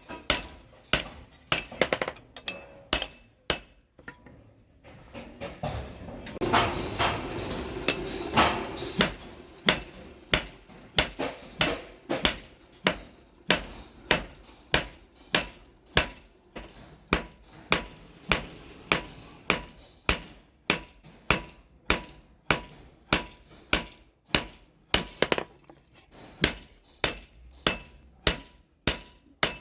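Blacksmith's hand hammer striking hot steel on an anvil while forging a machete blade: regular ringing blows, a little under two a second. The blows break off about four seconds in, a few seconds of steady noise follow, and then the hammering resumes at the same even pace.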